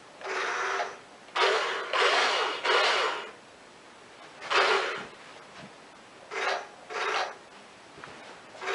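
Radio-controlled Tiger tank model's small electric drive whirring and rasping in a run of short bursts, about eight of them, some half a second long, with pauses in between.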